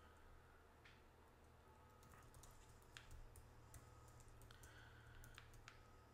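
Faint typing on a computer keyboard: irregular, scattered key clicks over a low steady hum.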